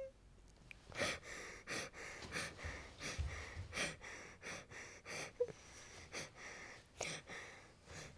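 A person breathing hard in short, gasping breaths, about two a second.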